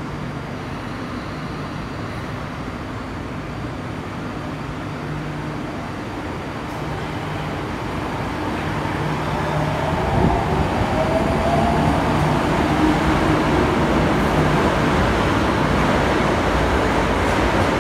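Tokyo Metro 02 series subway train pulling into an underground station platform, its wheels and motors rumbling louder as it comes close and runs past. A brief rising whine sounds about halfway through.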